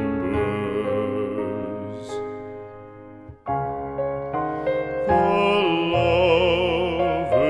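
Classical art song: a singer's held notes with vibrato over piano accompaniment. The music fades to quiet a little over three seconds in, then the piano strikes a run of new chords and the held notes return.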